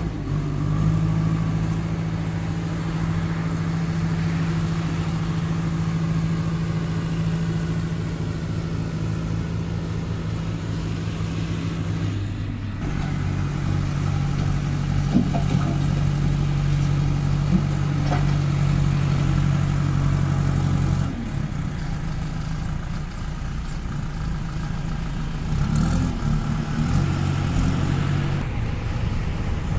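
Kirloskar diesel engine of a JCB 2DX backhoe loader running steadily. Its pitch drops a little about twelve seconds in and again about twenty-one seconds in, with a few faint clicks.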